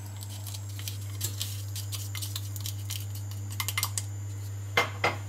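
Sugar pouring from a glass container into a stainless steel saucepan of water, heard as scattered light ticks and taps of glass and wooden spoon, with a sharper knock near the end. A steady low hum runs underneath.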